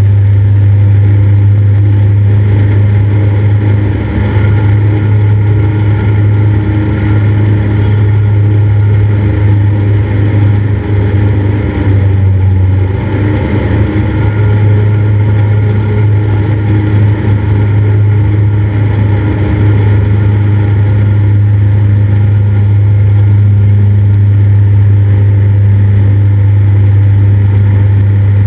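Cessna 172's piston engine and propeller droning steadily, with a brief unsteady patch about midway through.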